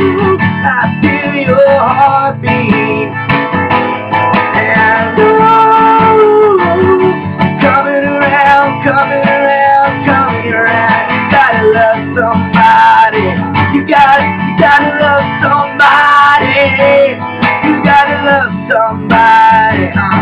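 Band music led by guitar, playing steadily with a melodic line over strummed chords.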